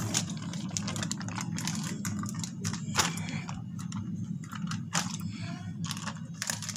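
Irregular clicks, knocks and rustles of a handheld phone being handled and moved about, over a steady low hum.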